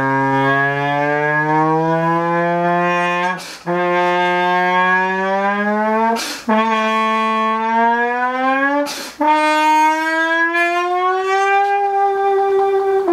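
Trombone with a mute fitted, played to imitate a supercar's exhaust note: four long notes, each sliding upward in pitch like an engine revving through the gears, with three short breaks for breath between them.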